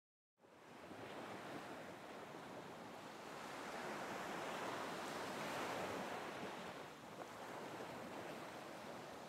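Sea surf washing on a shore: an even rush of waves that starts about half a second in and swells toward the middle.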